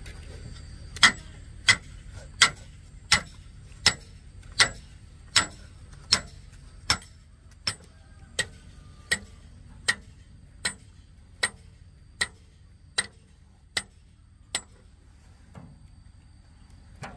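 A hand tool striking something hard in a steady rhythm: about twenty sharp blows, a little more than one a second. The blows grow somewhat fainter and stop a few seconds before the end.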